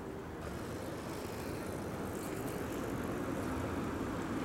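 Low, steady rumble of road traffic that grows slowly louder.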